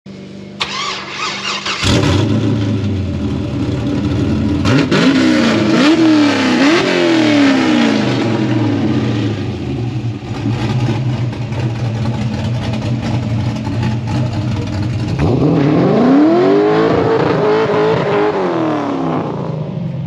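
Mazda RX-7 (FC) 13B rotary engine running and being revved while the car sits stationary: three quick blips about five to seven seconds in, then a longer rev held high for a few seconds near the end before dropping back.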